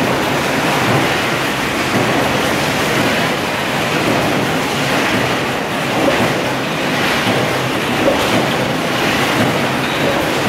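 Steady, dense machinery noise of an 18-litre square can body production line running, with small irregular knocks in it and no clear rhythm.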